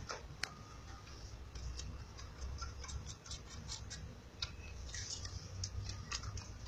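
Kitten suckling on a small milk bottle: faint, irregular wet clicks of its tongue on the teat, a few a second.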